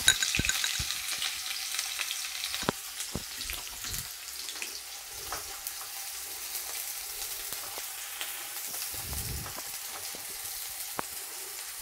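Chopped onion sizzling in hot oil in a non-stick kadhai on a low flame, the sizzle strongest just after the onion goes in and easing a little. A spatula stirring through it gives scattered taps and scrapes against the pan.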